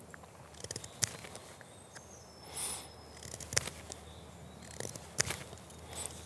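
A knife whittling a small piece of wood: irregular scraping cuts and sharp clicks as the blade shaves chips off to bevel its end.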